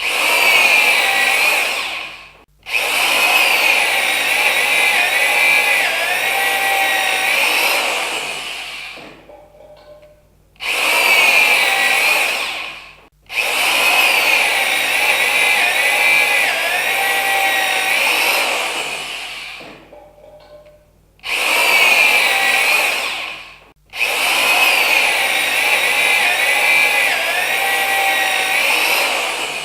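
Electric saw motor switched on in a short burst, then run again for a longer stretch with its pitch dipping now and then before it winds down. The pattern of short burst and longer run happens three times.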